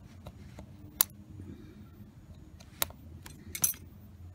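A few sharp metallic clicks and taps of handling inside an opened iPad 2's metal case, while the old Wi-Fi antenna is pulled free; the loudest comes about a second in, with several more near the end.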